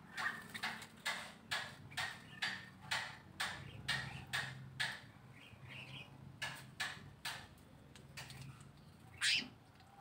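An animal's sharp clicking call, repeated about twice a second and fading out about seven seconds in, with one louder call near the end.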